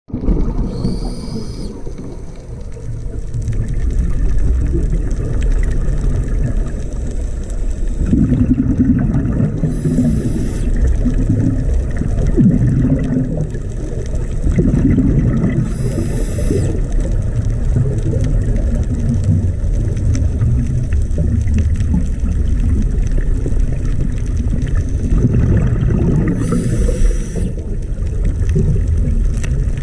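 Underwater sound picked up by a diving camera: a steady low rumble of water noise, broken four times by a short hiss about a second long, typical of a scuba diver's regulator breaths.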